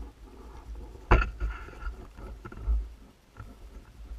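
Wind buffeting a body-worn action camera, with footsteps through dry brush and gravel and a sharp knock about a second in.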